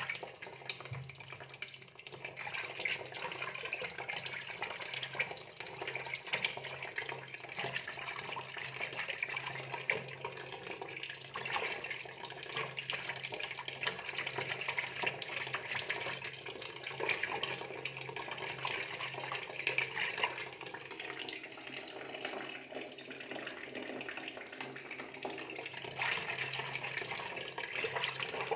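Water running and splashing steadily, with a low steady hum underneath.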